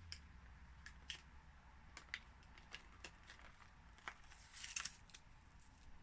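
Faint handling of toy packaging: scattered small plastic clicks and taps, with a brief crinkle of plastic wrapping near the end.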